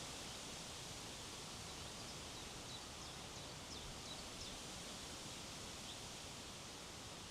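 Steady wind blowing over an open hillside and rustling through trees, an even hiss without gusts, with a few faint high bird chirps in the middle.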